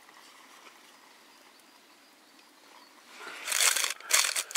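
Faint steady hiss, then about three seconds in, loud irregular crinkling and rustling in quick bursts with short gaps.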